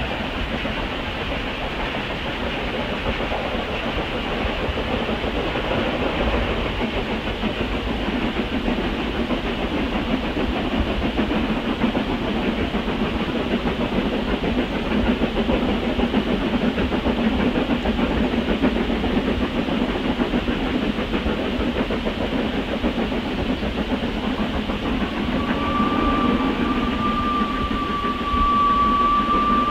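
Two 2-6-2T narrow-gauge steam locomotives working hard up a steep gradient, their exhaust beats running fast and continuous. Near the end a single steady whistle sounds for about four seconds.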